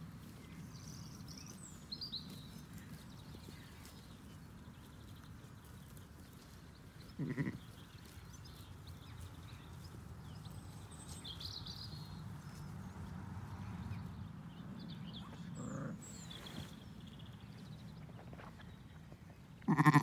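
Zwartbles sheep bleating: a short bleat about seven seconds in, a fainter one later, and a louder one near the end. Birds chirp briefly in between.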